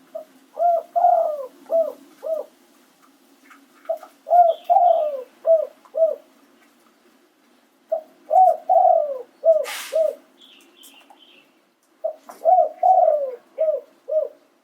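Spotted dove cooing: four phrases about four seconds apart, each a short note, a longer falling coo and two or three short clipped notes. A brief hiss comes just before the third phrase ends, and a few faint high chirps from another small bird follow it.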